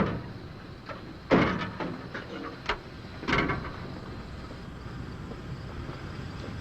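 A few knocks and thuds, the loudest about a second and a half in and another near the middle, over a low steady rumble.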